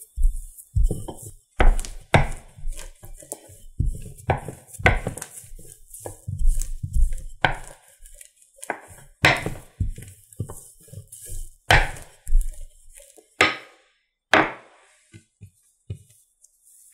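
Wooden rolling pin rolling out flour dough on a board: a dozen or so uneven back-and-forth strokes, each a rolling rumble with a knock. The strokes stop near the end, leaving a few faint small clicks.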